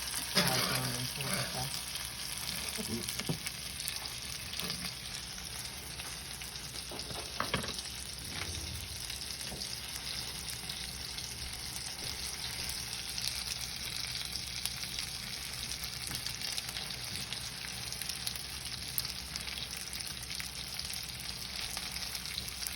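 Ribeye steak searing in hot oil in a pan, a steady sizzle, with a couple of brief knocks near the start and about seven seconds in.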